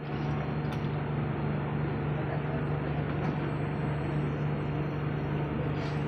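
Steady interior noise of a Singapore metro train carriage: an even rush of noise with a constant low hum and a few faint clicks.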